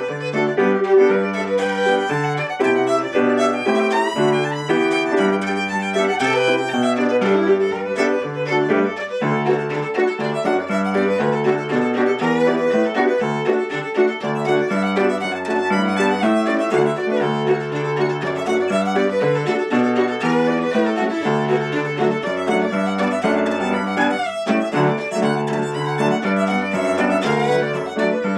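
Fiddle playing an Irish reel at a brisk, even pace, with lower accompanying notes changing in steady blocks underneath.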